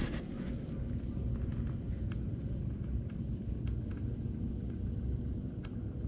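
Steady low rumble of wind on the microphone, with a few faint clicks from the small LiPo battery and its wires being handled.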